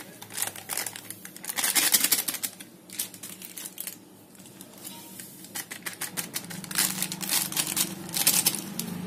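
Plastic milk-powder sachets crinkling as they are squeezed and shaken empty over a bowl, in two spells of rapid crackling, one at the start and one past the middle.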